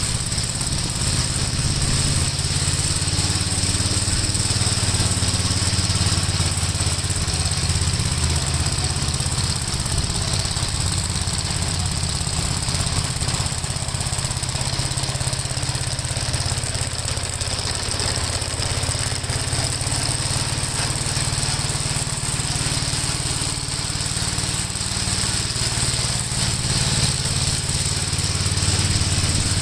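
Gravely walk-behind tractor engine running steadily, driving a sickle bar mower on test.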